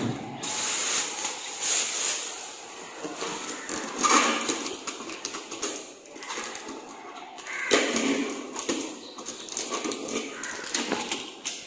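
Packing tape being peeled off the plastic casing of a 3D printer: irregular crackling and ripping in several separate spells.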